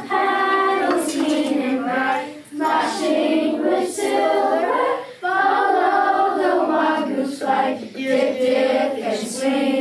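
A class of children singing a song together, led by a woman's voice, in held phrases with short breaths between them.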